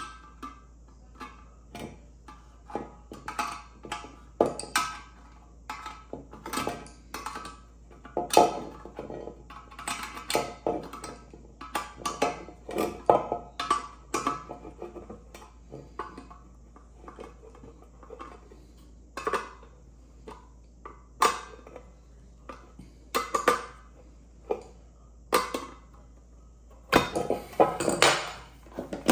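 Irregular metal clinks and knocks from a pressure cooker's lid and fittings being handled, with a burst of louder knocks near the end.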